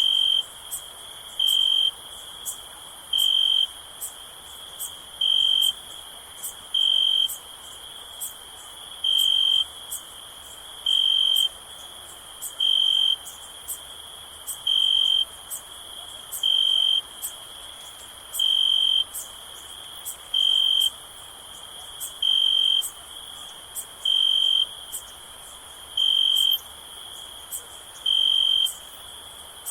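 Crickets chirping: a loud, clear chirp repeats about every two seconds over a constant high-pitched insect trill and fainter quick ticks.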